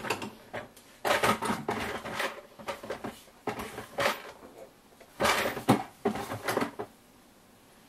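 Tools and wire being handled on a workbench: a few bursts of clattering, clicking and rustling, the loudest group about two-thirds of the way through.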